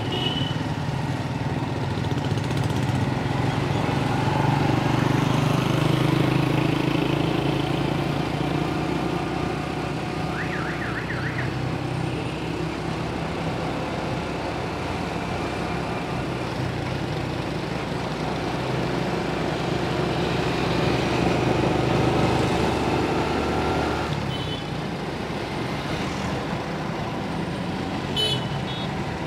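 Small motorcycle's engine running under the rider, with road and wind noise. It swells and rises in pitch as the bike speeds up, and drops back about 24 seconds in. A brief warbling tone sounds about ten seconds in.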